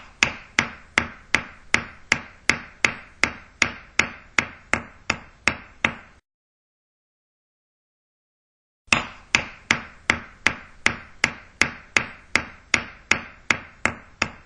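Hammering: evenly spaced hammer blows, between two and three a second, each with a short ring. About sixteen blows stop about six seconds in, and after a silent gap of nearly three seconds a second run of blows begins at the same pace.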